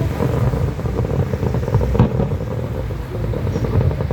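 Fireworks going off: a continuous low rumble of bursts with dense crackling, and one sharper bang about two seconds in.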